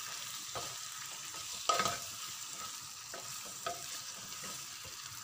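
Chicken pieces with tomato frying in oil in a square nonstick pan, sizzling steadily while a wooden spatula stirs them and knocks against the pan several times. The loudest knock comes a little under two seconds in.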